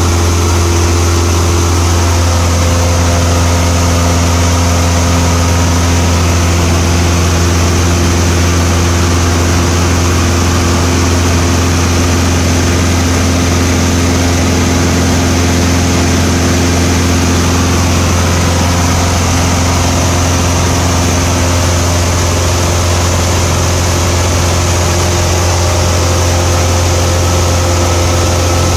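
Steady drone of a single-engine light aircraft's piston engine and propeller in level flight, heard inside the cabin: a loud, even low hum with a few steady higher tones over it.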